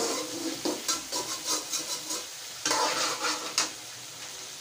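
Metal spatula scraping and stirring chicken karahi in a metal karahi while the curry sizzles, during bhunai, the frying down until the oil separates. The stirring strokes stop about three and a half seconds in, leaving a steady sizzle.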